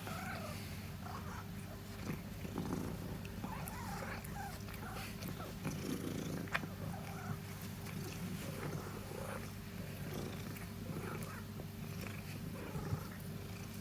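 Long-haired domestic cat purring steadily, with short higher-pitched squeaky noises breaking in over the purr every second or so, and a couple of sharp clicks.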